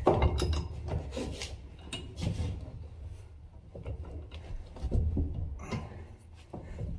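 A heavy bench vise, not bolted to anything, shifting, scraping and knocking on wooden floorboards as a long metal bar clamped in its jaws is levered to bend a steel strip. Irregular clunks and rubbing with no steady rhythm.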